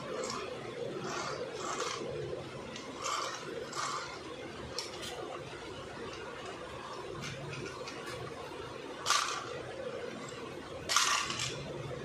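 Handling noise from an EPP foam RC model airplane being turned over in the hands: soft rubbing and scraping, with two louder scrapes about nine and eleven seconds in.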